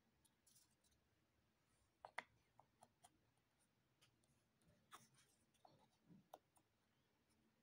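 Faint, scattered clicks and light rubbing of jigsaw puzzle pieces being handled and pressed into place, the sharpest click about two seconds in.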